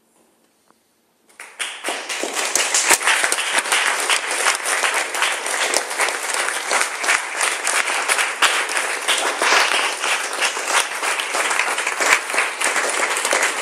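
Audience applause breaking out suddenly about a second in, then a dense, steady clapping of many hands at the end of a dance performance.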